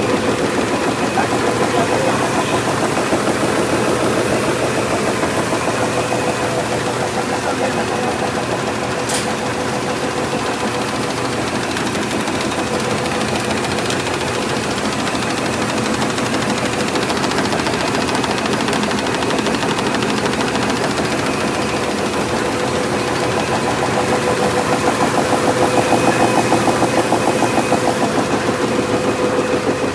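XPX MDC-SD-330 servo-driven flatbed die-cutting machine running, its die stamping self-adhesive label stock in a fast, even rhythm over a steady machine hum.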